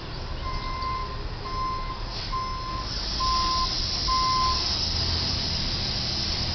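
A delivery box truck's reversing alarm beeps five times, about once a second, as the truck backs up. It stops a little past the middle. A steady hiss comes up about three seconds in and stays to the end.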